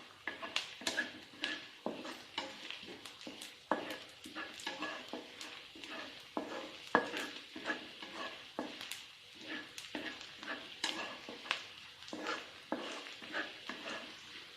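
Food sizzling in hot oil in a pan while a spatula stirs and scrapes against it, with irregular clinks and scrapes over a steady frying hiss.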